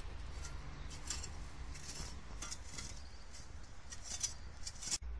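A metal spade digging into soft ground: irregular scrapes and clinks of the blade in the soil, over a steady low rumble.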